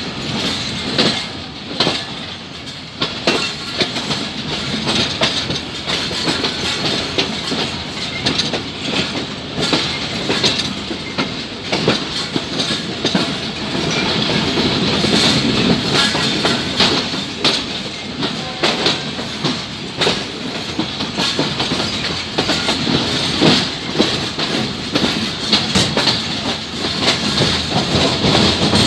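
Train carriages rolling along the track, their wheels clacking irregularly over the rail joints in a steady stream of clicks.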